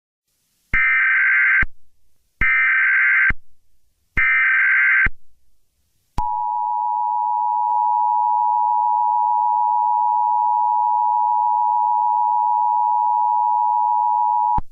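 Emergency Alert System activation for a tornado warning: three bursts of SAME header data, a harsh digital screech each just under a second long and about a second apart, then the EAS two-tone attention signal, a steady dual tone held for about eight seconds.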